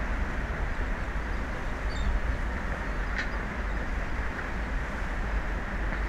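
Steady low rumble of wind on the microphone mixed with open-sea noise. A faint high chirp comes about two seconds in and a brief click about a second later.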